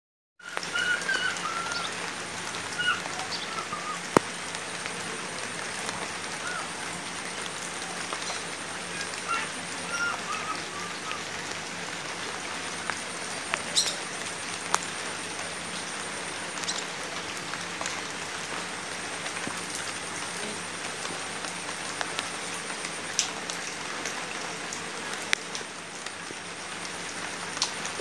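Light rain falling on standing water and broad banana leaves: a steady hiss with scattered sharp drips and taps.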